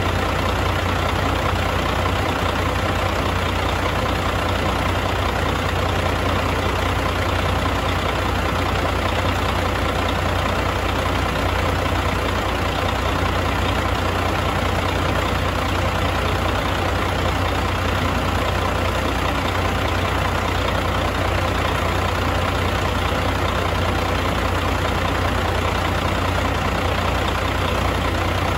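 1999 Caterpillar C12 inline-six diesel engine idling steadily.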